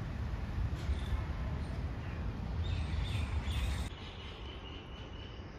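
Faint outdoor background: a low steady rumble that eases off about four seconds in, with faint high bird chirps.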